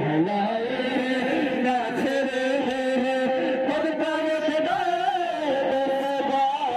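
Men chanting a noha, a Shia mourning lament, led by a reciter singing into a microphone in long held notes.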